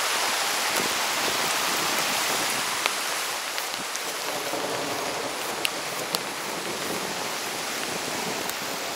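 Steady rush of a rain-swollen creek in flood mixed with heavy rain falling, with a few sharp ticks.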